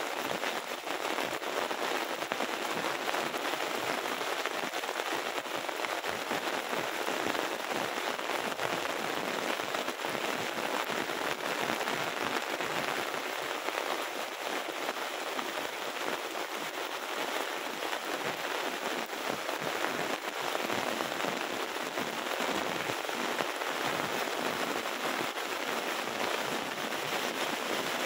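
Heavy rain falling steadily: a dense, even hiss of countless drops hitting the ground and surfaces.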